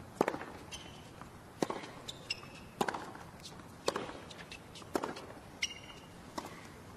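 Tennis rally: racket strings striking the ball about six times, roughly once a second, shots alternating between the two baseline players. Between the shots come brief high squeaks of tennis shoes on the hard court.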